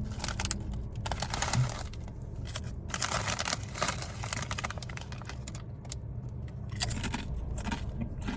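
Ruffles ridged potato chips crunching as they are bitten and chewed close to the microphone, with some crinkling of the chip bag; the crackles come irregularly throughout.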